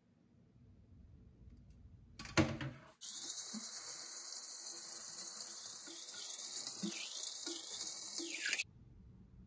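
A short clatter, then tap water running into a sink for about five and a half seconds before it is shut off suddenly.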